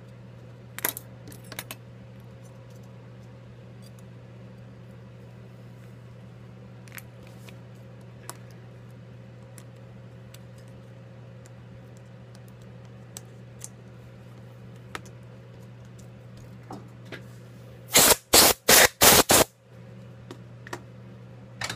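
Small clicks and ticks of metal tools and tiny parts being handled on an opened iPhone 5s during disassembly, over a steady low hum. Near the end comes a quick run of about five loud bursts of noise.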